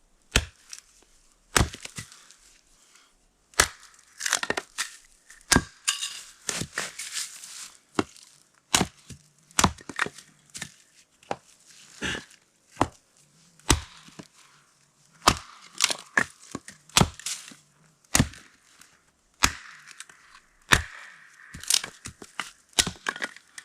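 Firewood being split and chopped: irregular sharp strikes of a blade into wood about once a second, with the dry wood cracking and crunching between blows.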